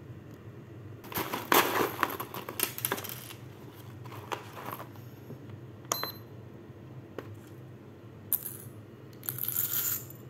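Roasted coffee beans clattering into a small glass in several rattling bursts, with a single sharp clink about six seconds in.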